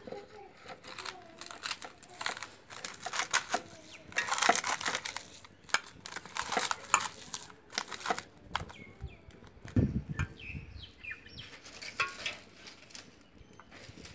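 Hand squeezing and mixing a coarse banana-flower and ground-dal vada batter in a steel bowl: a dense, crackly squishing and rustling, busiest through the first half.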